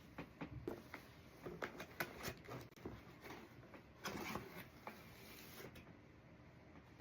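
Packaging being handled: scattered light clicks and short rustles, with a longer rustle about four seconds in.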